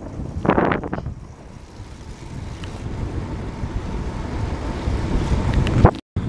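Wind buffeting the camera microphone, together with tyre and road rumble, from a road bicycle rolling on tarmac at about 27 km/h. Louder at first, it eases off about a second in and then builds again. It cuts out for an instant near the end.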